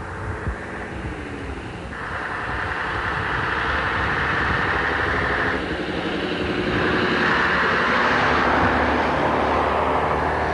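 Diesel engine of a London RT double-decker bus running under load as the bus draws near, growing louder in two surges, about two seconds in and again about seven seconds in.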